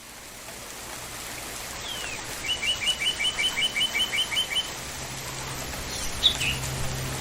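Steady rain hiss fading in, with a bird singing a quick trill of about a dozen repeated notes in the middle and a single sharp bird call near the end. A low steady tone comes in near the end.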